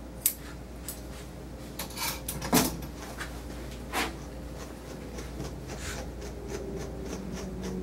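A few scattered sharp clicks and knocks from grooming scissors and a hand brush working through a dog's matted tail, the sharpest knock about two and a half seconds in. A steady low hum runs underneath.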